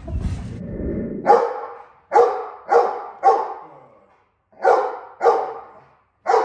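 A low rumbling noise for about a second, then a Black Russian Terrier barks seven times in short, uneven groups: alert barking at a masked stranger at the window.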